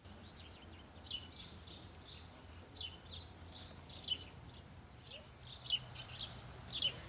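Small birds chirping repeatedly, short high notes that drop in pitch, over a low steady rumble.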